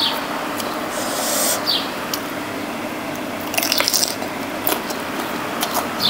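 Close-up eating sounds: wet chewing and mouth smacks from a mouthful of rice noodles and fish, in short scattered clicks and slurps, over a steady fan hiss.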